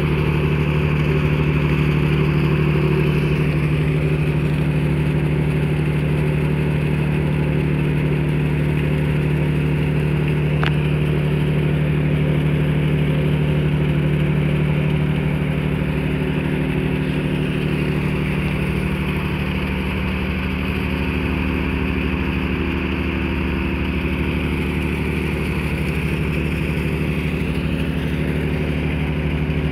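Cargo ship's diesel engine running with a steady low drone and a hiss of wind and water, heard from on deck. The drone eases slightly about halfway through.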